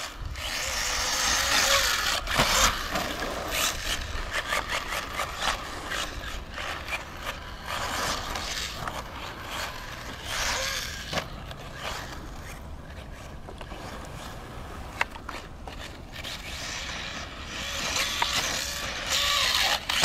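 Kyosho Inferno RC buggy's small engine heard from a distance as a buzz that swells and fades every few seconds as the car throttles up and eases off around the dirt track.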